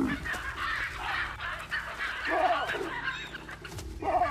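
Baboons screaming, a run of harsh, overlapping calls that rise and fall in pitch: the alarm of a panicking primate cornered by a leopard.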